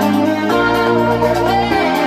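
Electronic dance music played at maximum volume through a Tribit StormBox Micro 2 portable Bluetooth speaker: a strong bass line under sustained chords that change about half a second in and again near the end.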